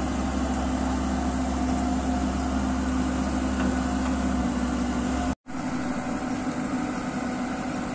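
Komatsu crawler excavator's diesel engine running steadily. The sound cuts out for an instant about five and a half seconds in, then the engine comes back with less low rumble.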